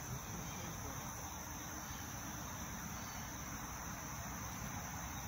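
Steady, high-pitched chorus of insects chirring without a break, over faint outdoor background noise.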